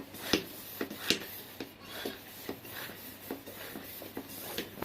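Hand pump inflating a football: a run of short pump strokes, about two a second.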